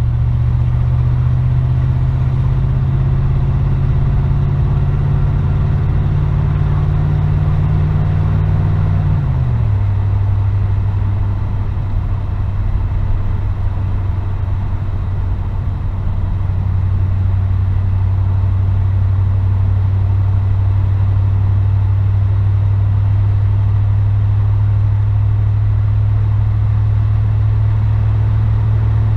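Car engine droning steadily inside the cabin; its note drops once about a third of the way in and then holds steady at the lower pitch.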